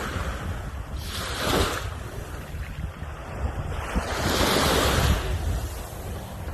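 Sea waves washing onto the shore, swelling twice, about a second in and again from about four seconds, with wind rumbling on the microphone.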